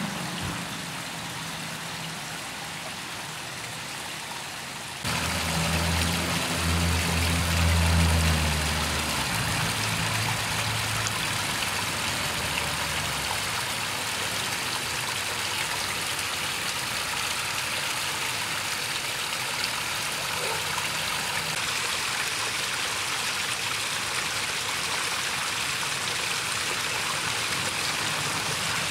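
Rock waterfall of a backyard koi pond splashing steadily into the pond, getting louder about five seconds in. From about five to thirteen seconds a low engine hum swells and fades under the water sound.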